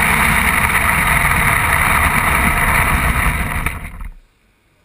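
Radio-controlled car driving over concrete, heard from a camera mounted on the car: a loud, steady motor and drivetrain whine with rolling noise. It drops away to near quiet about four seconds in as the car slows and stops.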